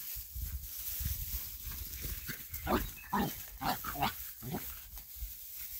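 Dachshund puppies making short play cries while wrestling in grass, a quick run of about seven about halfway through.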